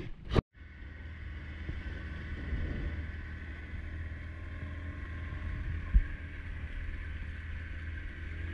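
Small wooden fishing boat's engine running steadily under way, a low even hum with a fainter whine over it, with wind on the microphone; a single thump about six seconds in.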